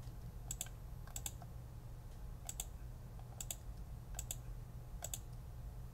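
Sparse computer keyboard key presses and mouse clicks while editing in Blender: short click pairs about once a second, over a faint steady low hum.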